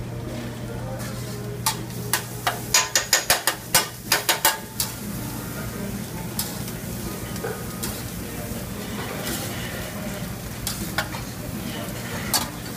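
Meat sizzling on a flat-top griddle over a steady low hum. About two seconds in comes a quick run of about a dozen sharp clacks, a metal spatula chopping and scraping on the steel griddle, and a few lighter scrapes follow later.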